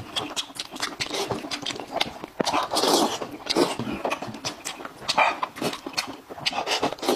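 Puffing, panting breaths through pursed lips, mixed with wet clicks and squelches as braised sheep's head meat is torn apart by hand in oily chili sauce.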